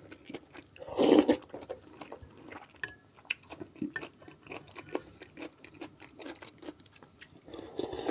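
Close-up chewing and mouth noises of someone eating cold okroshka soup, with small clicks of a spoon against a glass bowl. A loud slurp comes about a second in, and a longer slurp near the end as the broth is drunk straight from the tipped bowl.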